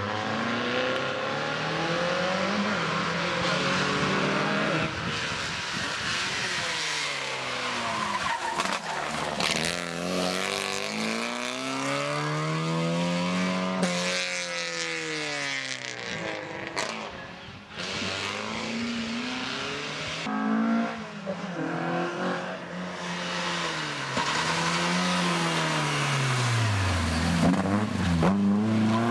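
Historic rally cars driving hard through hairpin bends, one after another. Their engines rev up and drop back over and over through gear changes and braking for the turns, and the last car is loudest as it passes close by near the end.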